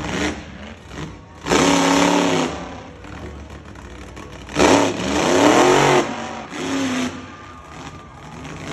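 Monster truck engine revving in loud bursts of about a second each, the pitch climbing and falling as the throttle is opened and closed, with a quieter idle between the revs.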